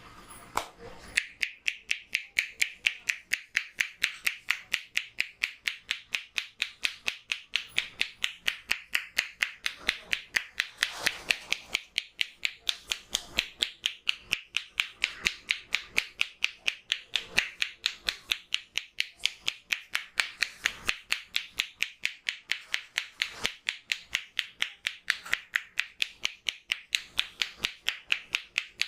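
Barber's hands tapping and slapping a client's head in a steady percussive massage rhythm, sharp claps about three a second, starting about a second in.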